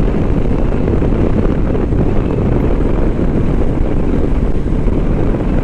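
Steady wind rush on the microphone mixed with a motorcycle's engine and tyre noise, cruising at about 60 km/h.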